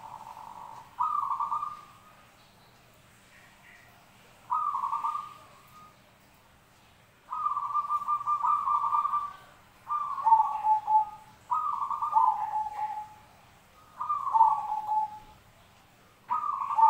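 Zebra dove (perkutut) cooing: about six short phrases of fast, stuttering coos, each about a second long with pauses between, the later phrases ending on a lower note.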